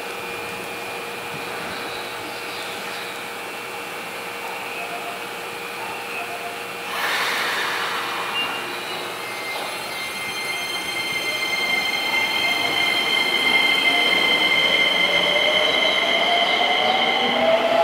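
Keisei 3000 series electric train pulling away from a station, its Toyo IGBT-VVVF inverter whining. There is a short hiss about seven seconds in. From about ten seconds, steady high inverter tones grow louder, and near the end a tone rises in pitch as the train gathers speed.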